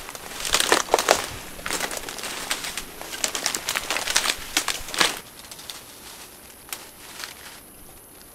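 Leaves and brush rustling and twigs crackling as people push and crouch through dense undergrowth, a rapid irregular run of crackles that dies down about five seconds in.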